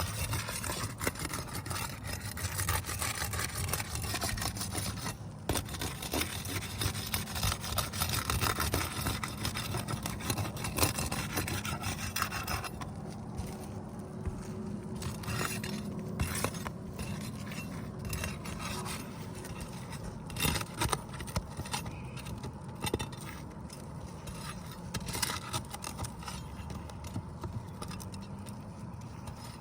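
Brittle, wind-creased asphalt roof shingles being lifted and worked by hand in a repairability test, a continuous rubbing and scraping with many small clicks. They crease as they are bent.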